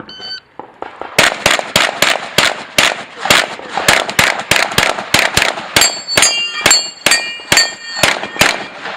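A shot-timer beep, then a pistol fired in a long string of rapid shots, two to three a second, in a practical pistol stage. From about six seconds in, steel targets ring with a clang as they are hit.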